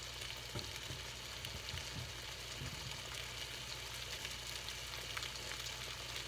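Cubed raw chicken breast frying in olive oil in a pan, a steady sizzle.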